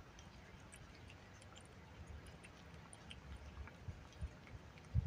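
Cat eating wet paté from a bowl: faint, steady chewing with small wet clicks and smacks. A few dull low thumps come through, the loudest near the end.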